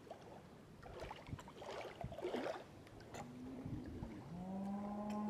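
Small splashes and gurgles of water as a carp is handled at the water's edge, then a cow mooing: one long, low, steady call starting about four seconds in.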